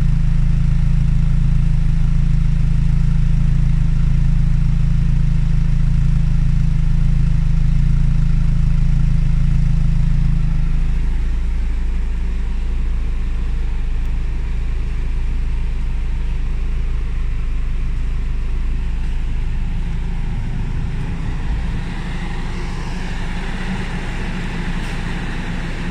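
Lotus Elise S2 engine idling steadily, a loud, even low exhaust hum heard right at the twin tailpipes. About eleven seconds in it turns quieter and duller as it is heard from the engine cover and side air intake instead, and a faint rising whine comes in near the end.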